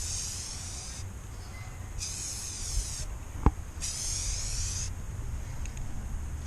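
Aerosol spray can of primer hissing in short bursts of about a second each, three times, as it is swept across in passes. A single sharp click about halfway through.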